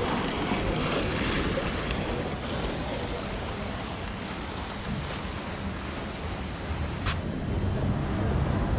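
Steady rushing outdoor noise: splashing fountain water and wind buffeting the action camera's microphone. A single sharp tick about seven seconds in.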